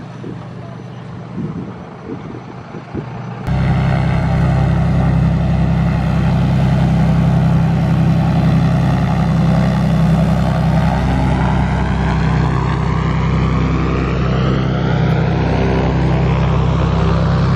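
A loud, steady engine noise starts abruptly about three and a half seconds in, after quieter, scattered sounds, with a sweeping shift in its upper tones later on.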